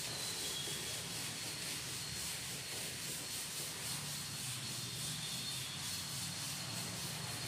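A chalkboard duster rubbing across a chalkboard in repeated back-and-forth strokes, wiping chalk writing off the board.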